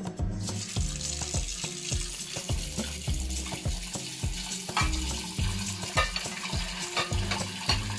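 Tap water running in a steady hiss into a pot of blanched chicken bones as they are rinsed, starting about half a second in, with light clinks of the pot and bones.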